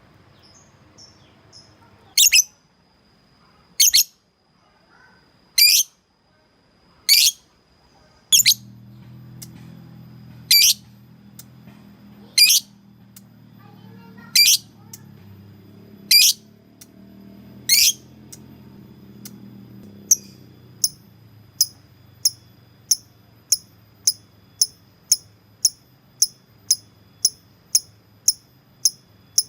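Lovebird giving loud, sharp, high-pitched calls, one about every second and a half, then from about two-thirds of the way through a quicker run of shorter calls, about two a second. These are challenge calls to a rival, used as a lure to provoke other lovebirds into answering.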